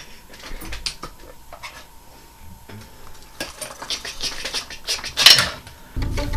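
A steel knife clicking and scraping against a wooden chair, mixed with knocks of wood and cloth rustling as someone works at it. There is a louder scrape about five seconds in, and a low, steady sound comes in near the end.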